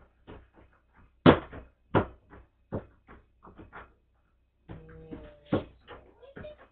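A run of sharp knocks and clatters, the loudest about a second in and two more close behind it, then a few lighter taps; a little past the middle comes a brief steady low tone.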